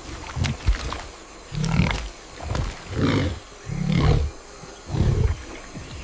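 Big cat growling: a series of about six short, low growls spread over a few seconds.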